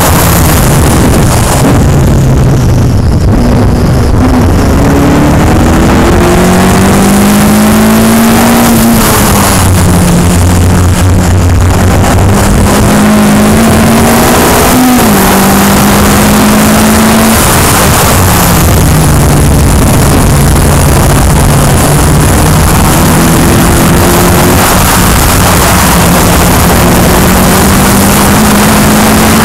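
Open-cockpit track car's engine under hard driving, its pitch climbing in long rising sweeps, dropping suddenly at a gearshift about halfway through and falling away again before climbing once more near the end. Heavy wind noise on the microphone throughout.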